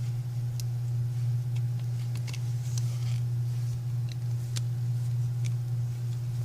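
Steady low hum with scattered faint clicks and ticks of small tools and parts handled during reassembly of an iPhone 5c.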